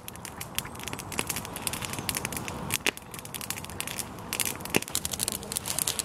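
Campfire crackling: irregular sharp pops and snaps of burning wood over a soft hiss.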